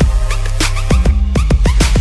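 Electronic background music with deep held bass notes and a steady drum beat.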